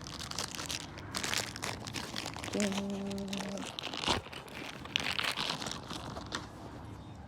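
Plastic packaging of a wiper blade adapter kit crinkling and rustling as it is opened and the small plastic adapters are handled.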